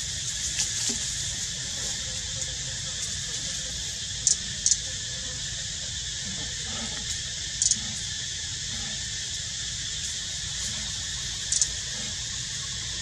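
Steady outdoor background hiss with a low rumble beneath, broken by a few short high-pitched chirps: two quick ones about four seconds in, another near eight seconds and a double one near the end.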